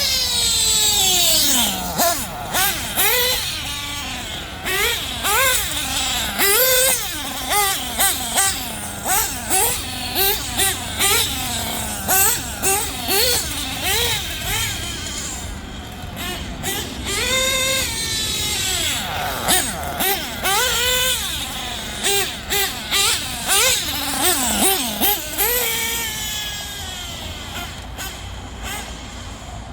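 Small nitro engine of an LRP RC car revving in short, repeated blips. Its high-pitched whine rises and falls again and again, with one long drop in pitch at the start. The engine's carburettor tune is still being worked out.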